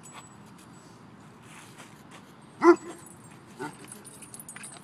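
A dog barks once, loud and short, about halfway through, then gives a softer bark about a second later.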